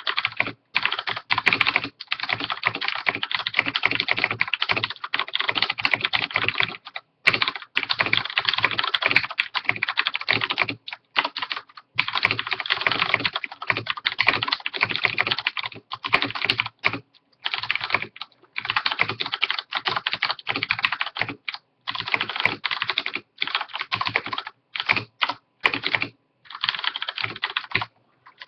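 Typing on a Filco Majestouch-2 Ninja mechanical keyboard with Cherry MX Brown switches: a fast, continuous clatter of keystrokes in runs of several seconds, broken by brief pauses between phrases.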